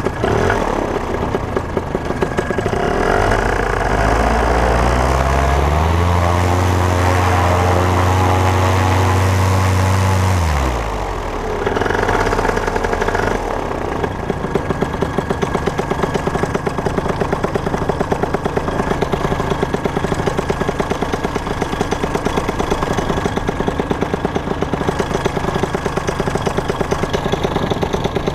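Paramotor engine running close by: revved up a few seconds in and held at high revs for about four seconds, then dropped back about ten seconds in to a steady lower run with a regular pulsing.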